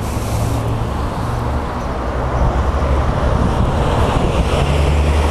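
Wind rushing over the microphone of a rider on a moving electric scooter, over a steady low rumble of city traffic.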